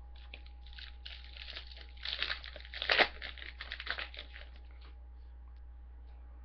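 Trading card pack wrapper crinkling and being torn open, a dense run of crackles that is loudest about three seconds in and dies away after about four and a half seconds.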